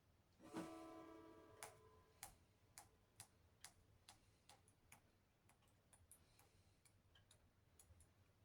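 Very faint sounds in a quiet room: a soft knock with a short pitched ring about half a second in, then a dozen or so irregular light clicks that fade away.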